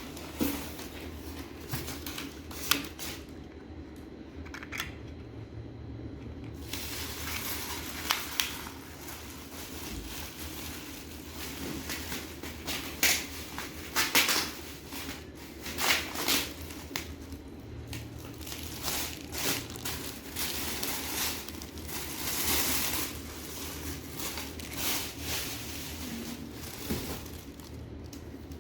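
Packaging being handled and unpacked: irregular rustling, crinkling and sharp clicks and knocks, busiest in the middle stretch, over a steady low background hum.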